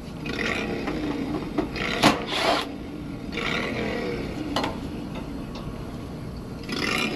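Scraping and rubbing of hands and tools at a condensing unit's panel while getting in to the compressor's start components, with a sharp click about two seconds in.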